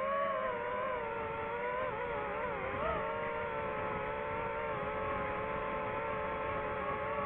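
DJI FPV drone's motors and propellers whining steadily in flight, the pitch wavering and dipping briefly a couple of seconds in as the throttle changes, over a rush of air noise.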